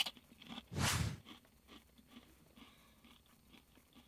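Ridged Ruffles Loaded Potato Skins potato chip being bitten and chewed: a sharp crunch at the start, a louder crunch about a second in, then faint crunching as it is chewed.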